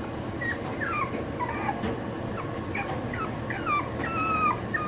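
French Bulldog puppy, nearly seven weeks old, whining: a run of short, high whines that each fall in pitch, with a longer drawn-out whine near the end.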